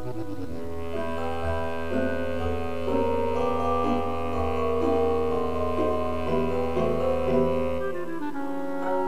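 Instrumental background music: sustained notes changing every second or so over a held low bass note, which drops out about eight seconds in.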